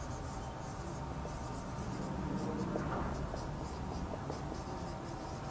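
Marker pen writing on a whiteboard: a faint run of short scratchy strokes as letters are formed.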